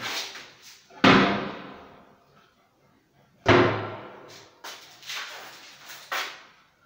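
Plywood kitchen cabinet doors being shut: two loud bangs about a second and three and a half seconds in, each dying away with an echo, then a few lighter knocks near the end.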